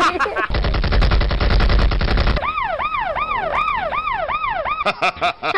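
Sound-effect burst of rapid automatic gunfire, followed by a fast up-and-down siren repeating about two and a half times a second, then a few sharp clicks near the end.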